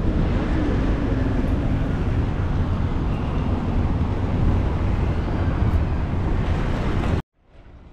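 A steady low rumble with noise spread across the range. It cuts off abruptly about seven seconds in, then fades back up.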